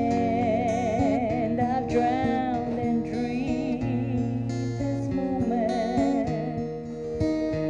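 A woman singing with vibrato on her held notes while playing an acoustic guitar.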